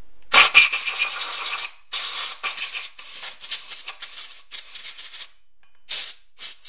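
Compressed air hissing through the holes of a chainsaw cylinder in a series of blasts, blowing out dirt and cleaner: one long blast, then several shorter ones, and two brief puffs near the end.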